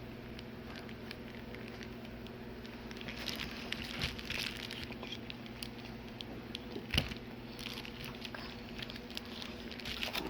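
Small clicks, crackles and light taps of TV backlight parts being handled during a backlight strip replacement, busier in the second half, with one sharper knock about seven seconds in. A steady low electrical hum lies underneath.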